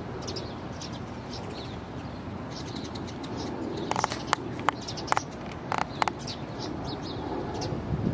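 Small birds chirping repeatedly over a steady low background rumble of outdoor ambience. About halfway through, a quick run of half a dozen sharp clicks over two seconds stands out as the loudest sound.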